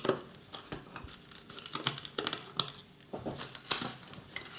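Small screwdriver, tiny screws and a metal sound-card case being handled during disassembly: a string of irregular light metallic clicks, ticks and scrapes, with a sharper clack near the start and another just before the end.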